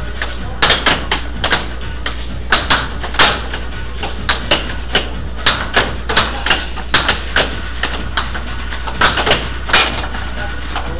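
Air hockey puck and mallets clacking in a fast, irregular string of sharp hits as the puck is struck back and forth and rebounds off the table's rails, over a steady background hum.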